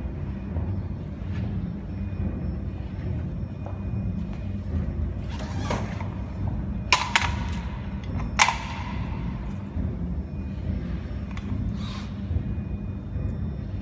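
Steady low background rumble, with handling noises over it as cables and a screwdriver are worked at the back of a laser welding machine: a few sharp clicks and knocks in the middle, the loudest about eight and a half seconds in, and softer rustles.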